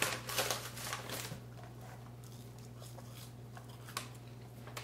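Quiet eating sounds: a few small crunches and clicks of someone biting and chewing, mostly in the first second or so, over a steady low hum.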